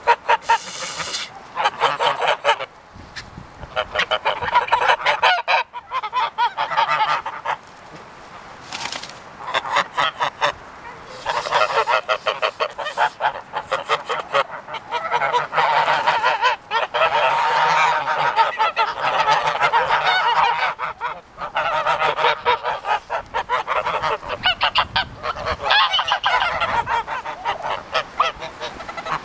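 A flock of white domestic geese gabbling and honking, with many calls overlapping into a continuous chatter. The chatter eases briefly a few times, most clearly about eight seconds in.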